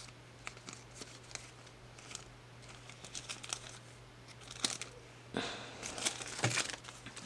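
Stickers and a clear plastic sleeve being handled and shuffled by hand: faint crinkling and light clicks, with a louder rustle in the last two seconds. A steady low electrical hum sits underneath.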